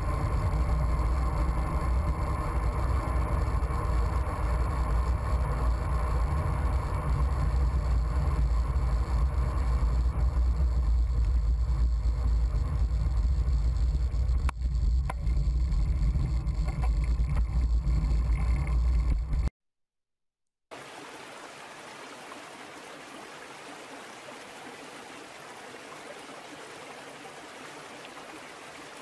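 Steady rumbling noise with a strong low hum and no clear events. It cuts off about nineteen and a half seconds in, and after a second of silence a much fainter steady hiss follows.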